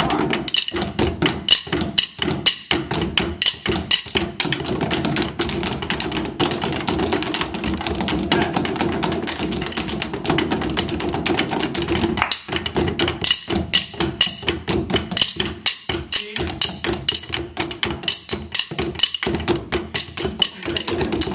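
Percussion ensemble playing drumsticks on rubber practice pads laid over drum heads: a dense, fast, sharp clicking rhythm from many sticks at once.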